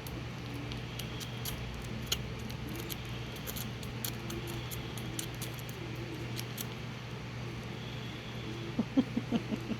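Baby squirrel feeding on milk formula: scattered small wet clicks and smacks, with a short flurry of louder knocks about nine seconds in, over a steady low hum.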